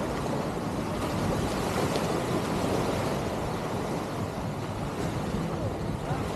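Steady wind noise on the microphone over the wash of small waves breaking on a sandy shore.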